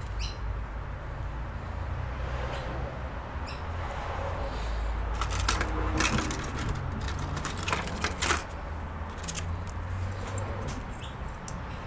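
A few sharp clicks and knocks, bunched a little past the middle, over a steady low hum, with a few faint short chirps, like a bird's, here and there.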